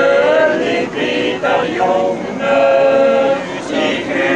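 Small mixed choir of men's and women's voices singing a cappella in harmony, a Swiss folk song in long held chords that change every second or so, with brief breaks for breath between phrases.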